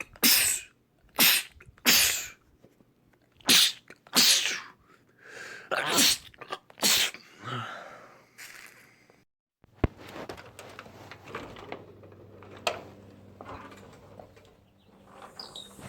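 A man sneezing about seven times in quick succession, each a loud, short, explosive burst. After an abrupt cut there are only faint clicks and rustling over a low hum.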